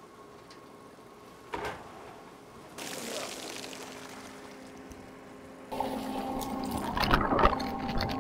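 Water splashing and streaming as an orange perforated basket of netted milkfish is hauled up out of the pond, growing louder for the last couple of seconds, with a single knock about a second and a half in and a low steady hum underneath.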